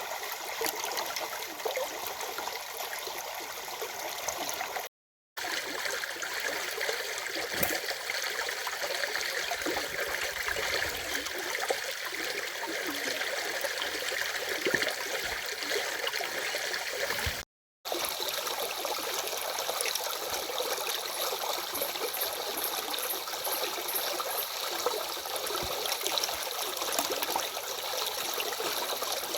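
Flowing stream water rushing and babbling steadily. The sound cuts out completely twice, for about half a second each, once about five seconds in and again about seventeen seconds in.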